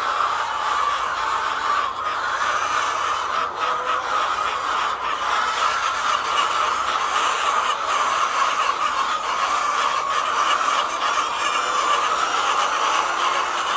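A large flock of laying hens clucking all at once, a steady, dense chorus with no breaks.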